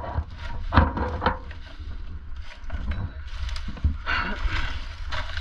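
Dry, cut palm fronds rustling and crackling as someone moves through them, with a few sharp knocks in the first second and a half and a steady low rumble on the microphone underneath.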